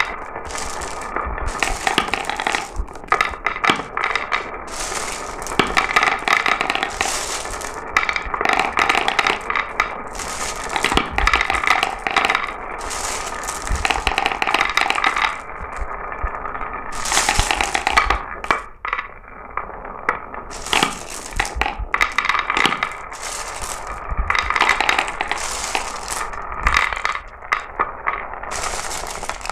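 Marbles rolling and clattering down marble run tracks: a continuous stream of clicks, knocks and rattles, with stretches of rolling rumble between the impacts.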